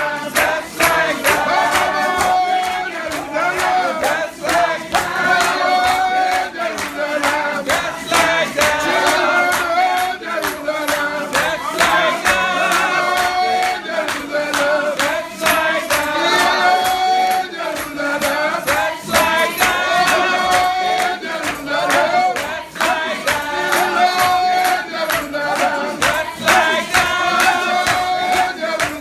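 A church congregation singing a chorus together over a steady, rhythmic beat.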